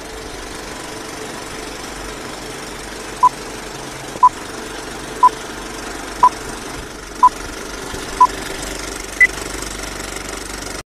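Film-leader countdown sound effect: a film projector running with a steady rattle, and short beeps once a second from about three seconds in, six at one pitch and then a final higher beep. The sound cuts off suddenly at the end.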